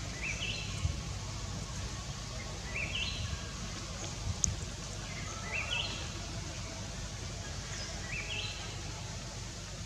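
A bird calling over and over: a short rising phrase of quick stepped notes, about every two and a half seconds. Under it is a steady low outdoor rumble, with a single sharp tick about halfway through.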